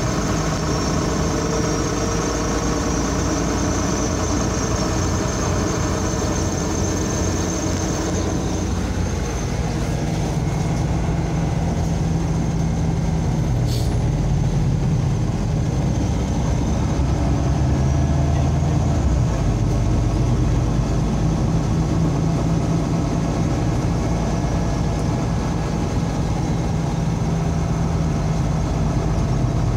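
MAZ-203 city bus driving, heard from inside the cabin: a steady low engine and drivetrain drone with road noise. The engine note shifts about nine seconds in, and there is a single click around fourteen seconds.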